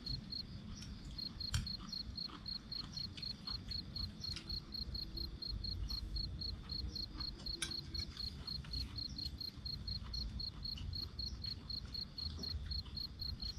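A cricket chirping steadily in a fast, even pulse of about four chirps a second, over a low rumble with scattered faint clicks.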